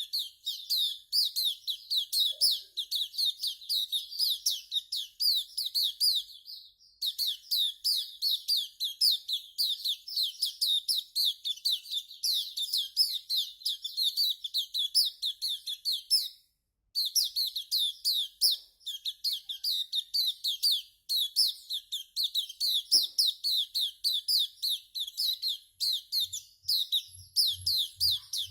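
White-eye songbird singing a long, fast, unbroken run of rapid downward-sliding chirps, broken by two short pauses. A faint low pulsing starts near the end.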